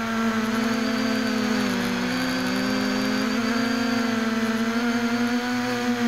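A MiniFD mini quadcopter's motors and propellers hum steadily in flight, heard from the aircraft itself. The pitch dips about two seconds in, as the motors slow, and rises again about a second later.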